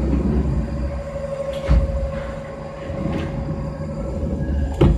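Sliding enclosure doors of a CNC mill rolling shut with a low rumble, a knock about a second and a half in, and a loud bang near the end as they close. A steady machine whine runs underneath.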